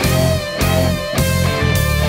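Heavy rock music: distorted electric guitar playing a sustained, bending lead line over a chugging low rhythm part that breaks off about twice a second.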